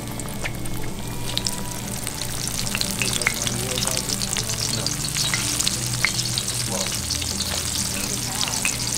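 Breaded shark pieces deep-frying in hot oil in a cast-iron pan: a dense sizzle full of crackling pops, which swells about a second in as more pieces go into the oil.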